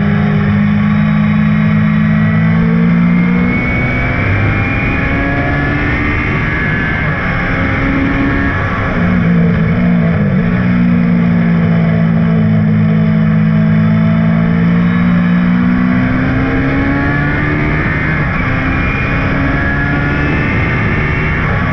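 Lola T298's BMW M12/7 four-cylinder racing engine running hard at high revs. The pitch climbs steadily and then drops several times as the car shifts gear and brakes for corners.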